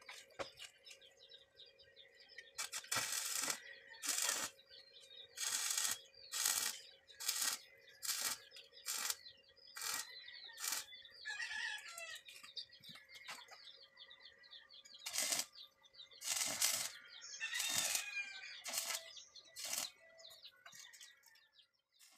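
Stick (arc) welder tacking steel with a rod electrode: a run of about fifteen short hissing arc bursts, each under a second, in two groups with a pause of a few seconds between. Birds call faintly in the gaps, over a faint steady hum.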